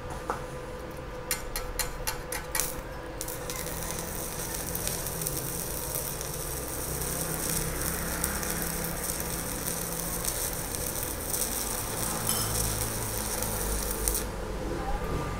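Stick-welding arc from a Kusama Japan IGBT inverter welder set to 80 amps, burning a 2.5 mm rod. A few sharp cracks as the arc is struck about one to three seconds in, then a steady crackling hiss for about eleven seconds that stops near the end.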